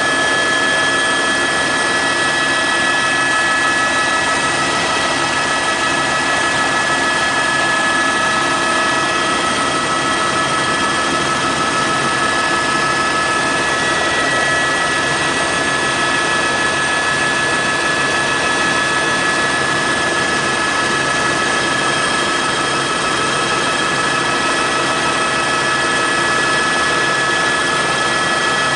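Helicopter in flight: a steady engine whine with several high tones held constant over the continuous noise of rotor and engine.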